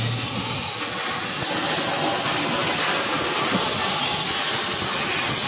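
CNC cutting machine's torch cutting circles out of a thick iron sheet: a steady, loud hiss.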